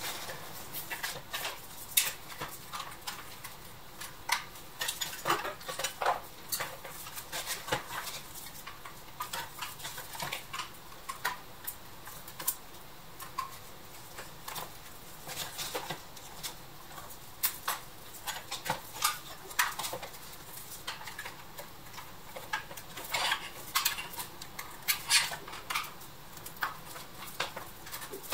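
Irregular light metallic clinks, taps and scrapes as a rusty pressed-steel Tonka toy tractor body is handled and worked with a screwdriver.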